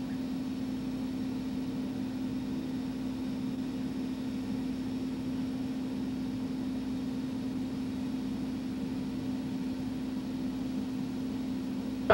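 Steady electrical hum on one low tone with constant hiss behind it, unchanging throughout.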